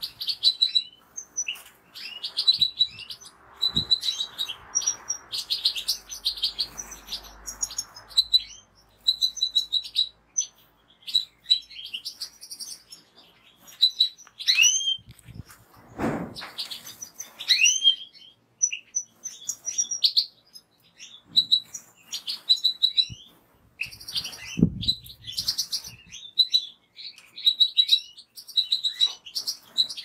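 European goldfinch singing: a long, busy run of quick twittering and trilled phrases with a few rising notes. Two short thuds sound partway through.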